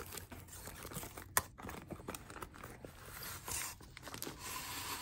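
Crinkling plastic shrink wrap and rustling cardboard as a boxed kit is handled and opened, with irregular crackles and one sharp click about a second and a half in.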